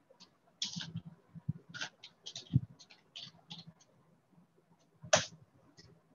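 Irregular small clicks and soft knocks, scattered unevenly, with one louder click about five seconds in.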